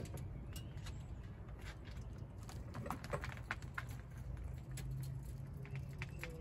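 Faint scattered clicks and knocks over a steady low hum as a raised SUV is being lowered back to level.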